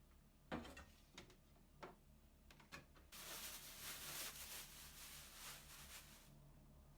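Kitchen preparation sounds: a few sharp knocks and taps of utensils and cookware, then about three seconds of steady rustling hiss that stops suddenly.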